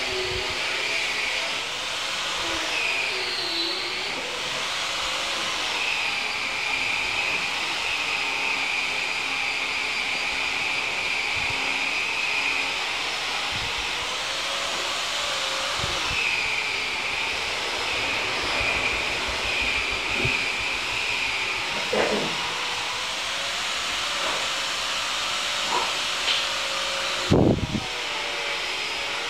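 A steady hiss with faint wavering tones behind it, and a sharp knock near the end.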